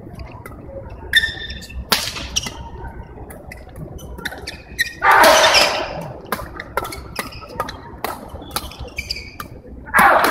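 Badminton rackets striking a shuttlecock and court shoes squeaking on the hall floor during a doubles rally, as a string of sharp smacks and squeaks with echo from the large hall. A louder noisy burst lasts about a second around five seconds in, and a shorter one comes near the end.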